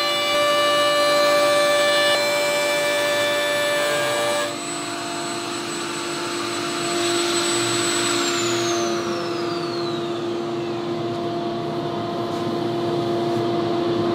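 Table-mounted router with a bearing-guided flush-trim bit, running at speed with a high multi-tone whine while trimming an MDF template. The sound changes about four and a half seconds in. From about eight seconds the whine falls steadily in pitch as the router spins down, with a steady lower hum underneath until it cuts off abruptly at the end.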